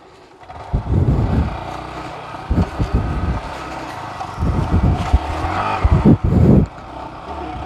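A Yamaha R15 V4's 155 cc single-cylinder engine revving in about four short bursts as the motorcycle is worked back over leaf-covered forest ground up to the road's edge.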